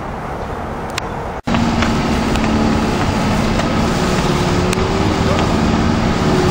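A motor vehicle running: a steady low rumble with a faint hum, starting abruptly after a sharp cut about a second and a half in.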